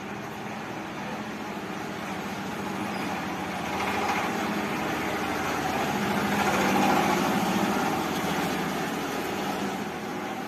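Steady vehicle engine hum that swells louder from about four seconds in, peaks around seven, and eases off near the end, as a vehicle passing by would.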